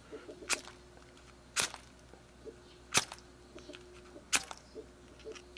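Oil match (permanent match) rod struck against the flint strip on its metal case, four sharp scrapes a little over a second apart, without catching light; the owner puts the failure down to a burnt-down wick tip.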